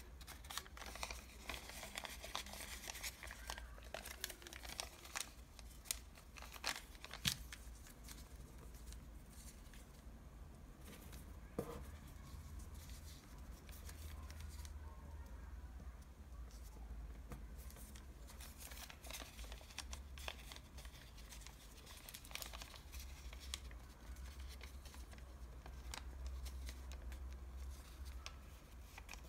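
Thin paper from a KFC French fries bag crinkling and crackling as it is folded and creased by hand, busiest in the first several seconds and again in the second half, over a steady low hum.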